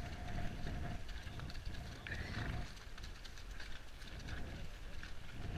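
Wind rumbling on the microphone of a camera carried by a rider on a walking horse, the low rumble swelling and easing.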